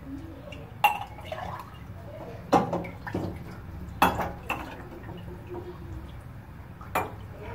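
A few scattered drips and light knocks, about four in all, over the low steady rumble of a lit gas burner, with a little water in a stainless steel pot heating above it.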